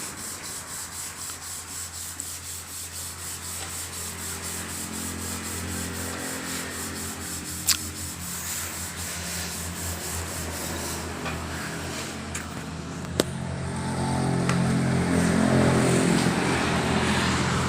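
Iseki 548 running with its hydraulic pump making a rhythmic rasping growl over a steady machine hum; this growling ('ngorok') is the pump fault being serviced. Two sharp clicks sound partway through, and near the end the hum rises in pitch and grows louder.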